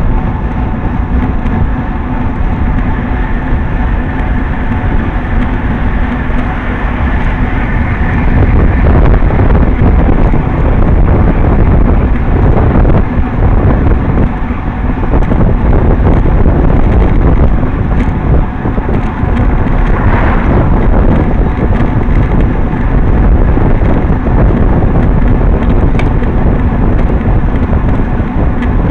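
Loud, steady wind noise buffeting the microphone of a camera on a moving road bicycle.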